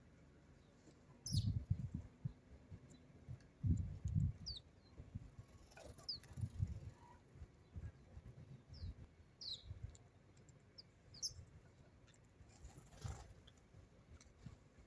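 House sparrows chirping: short, high calls that slide quickly downward, scattered every second or two. Between them come irregular low, muffled bumps, louder than the chirps.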